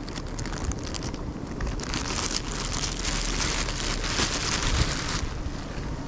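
Rustling and crinkling over low wind rumble on the microphone. The crinkling thickens about two seconds in and stops abruptly about five seconds in.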